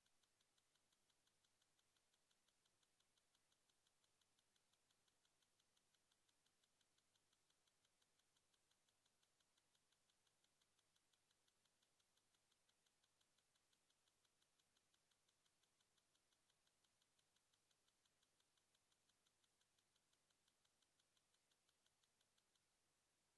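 Near silence, with faint, fast, evenly spaced ticking that stops shortly before the end.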